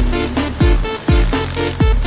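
Electronic dance music with a steady, heavy kick drum, a deep thump a little under twice a second.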